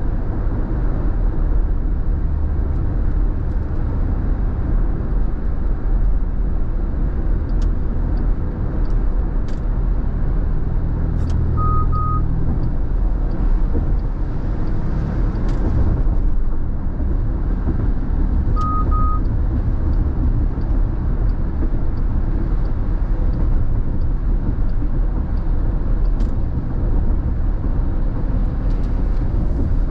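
Steady road noise inside a car driving on a wet freeway: tyres on wet pavement and engine rumble. Near the middle, two short double beeps sound a few seconds apart, with a few faint ticks scattered throughout.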